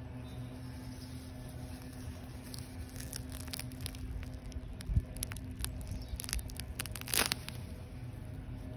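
Grass and weed stems rustling and crackling as a hand works through a lawn among hairy bittercress plants, with scattered crackles from about three seconds in, a low thud, and a louder rustle near the end, over a steady low hum.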